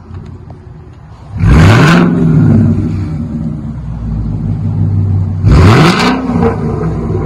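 Ford Mustang GT's 5.0 V8 exhaust, rear mufflers deleted, idling and blipped twice about four seconds apart; each rev climbs sharply and drops back to idle and is the loudest sound.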